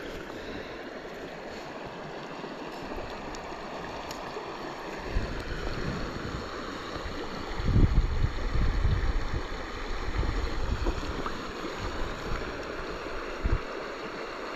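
Creek water running steadily. From about five seconds in, low rumbling buffets join it, loudest around eight seconds, with a short thump near the end.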